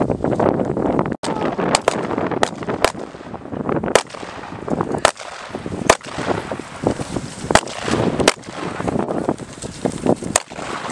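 Skis shuffling and crunching through snow with ski poles planting, giving sharp clicks at irregular intervals of about a second over a steady rough swishing, with wind on the microphone.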